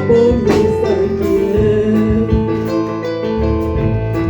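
Live church worship music: a Lingala praise song, with a singer's line about a second in over sustained keyboard chords and bass, then the backing carries on alone.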